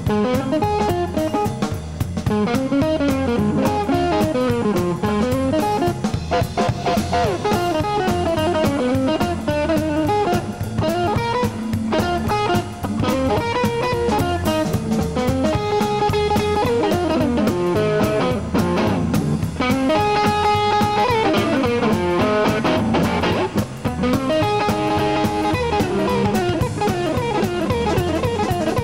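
Live electric blues: a hollow-body archtop electric guitar plays a lead of fast, winding single-note runs, with held notes and repeated figures later on, over drums.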